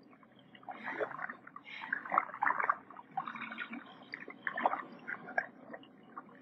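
Irregular gurgling and bubbling water, a documentary sound effect for water being drawn up through a tree's xylem tubes.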